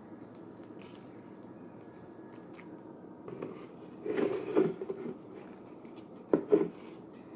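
Glue slime being squeezed and stretched in the hands, with a cluster of squelches about four seconds in and two sharp squelches near the end.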